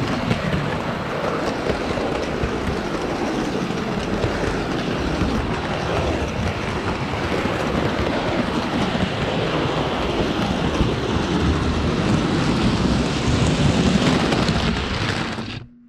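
Hornby OO-gauge model train running along the track, heard close up from on board: a steady rolling rattle with rapid wheel clicks on the rails. It cuts off suddenly just before the end.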